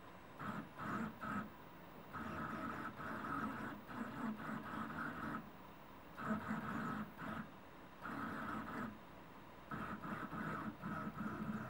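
Kossel delta 3D printer's stepper motors whining as the carriages drive the effector around, starting and stopping in bursts that last from a fraction of a second to a few seconds.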